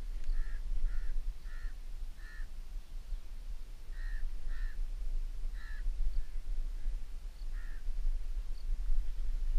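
A bird calling in short, separate calls: a run of four evenly spaced calls in the first couple of seconds, then a pair, and a few single calls later, over a steady low rumble.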